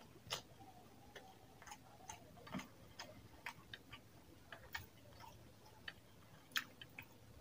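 Faint, irregular wet clicks and smacks from eating rice and chicken curry by hand: fingers working rice into gravy on the plate, and a closed mouth chewing.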